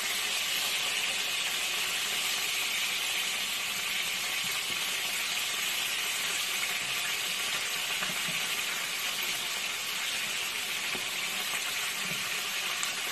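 Marinated chicken pieces sizzling steadily as they fry in hot oil in a skillet.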